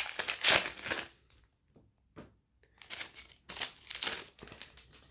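Plastic trading-card pack wrapper crinkling as it is torn open and the cards are handled. The sound comes in two spells of crackling, with a short pause about a second in.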